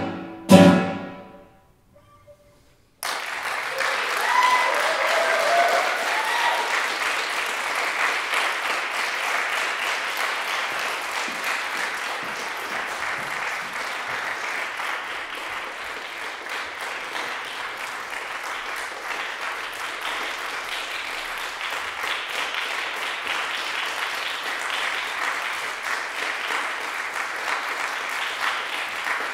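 The last two strummed chords of a classical guitar ring out and die away. After a short silence, audience applause starts suddenly about three seconds in, with a few cheering voices early on, and then goes on steadily.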